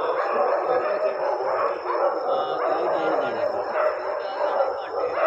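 Several dogs howling and yelping at once, their rising and falling calls overlapping without a break.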